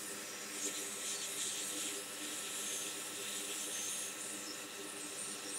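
Soldering iron working solder and flux at a fluxed chip's centre pad on a logic board, giving a faint hissing sizzle over a steady hiss and low hum.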